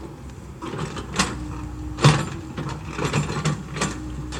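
Komatsu PC70-8 excavator working: its engine runs steadily under a series of irregular knocks, about eight in four seconds, the loudest about two seconds in.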